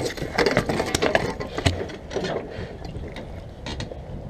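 Irregular clicks, taps and rustles from handling a rubber landing net and pliers on a composite dock while working a hooked, line-wrapped bowfin free. The clicks are thickest in the first two seconds, with one sharp knock partway through, then thin out.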